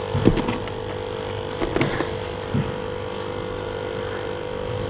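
A steady mechanical hum with several thin steady tones, broken by a few short knocks and clicks near the start and about two seconds in.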